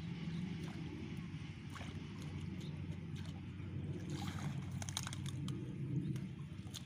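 Shallow water sloshing and splashing as someone wades and works his hands through submerged weeds, with a burst of splashes and dripping about four to five seconds in as a clump of water weeds is pulled up. A steady low hum runs underneath.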